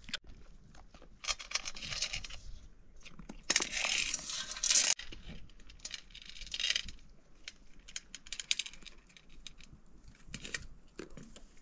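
Intermittent light clinks and rustling from small objects being handled, with a louder burst of clatter about three and a half to five seconds in.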